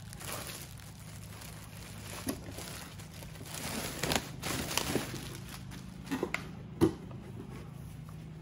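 Clear plastic bag crinkling and rustling as it is pulled off a Rupes dual-action polisher, with a few short knocks of the tool and packaging, the sharpest about seven seconds in.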